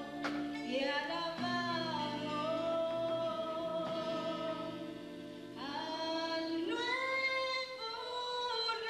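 Church choir of young men and women singing in long held notes.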